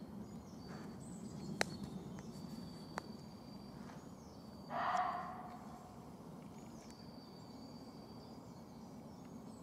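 A muntjac deer gives a single short bark about five seconds in. Faint high bird calls and two sharp clicks sound earlier.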